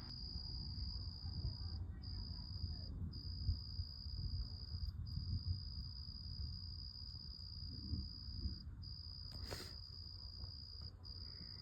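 Crickets trilling in one steady high-pitched tone, broken by a few short pauses, over a low, uneven background noise. A single short sharp sound comes about nine and a half seconds in.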